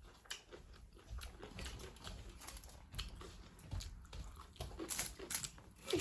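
Close-miked eating sounds: soft chewing and mouth smacks, a scatter of small irregular clicks.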